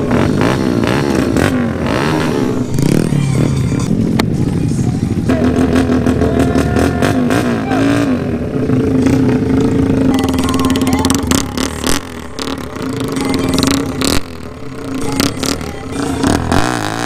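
Loud motorcycle exhausts running and revving up and down, the pitch wavering with the throttle, with a few sharp clicks.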